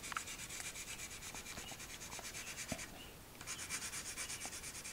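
Side of a pencil shading on drawing paper in quick back-and-forth strokes, a soft scratchy rubbing that stops briefly about three seconds in.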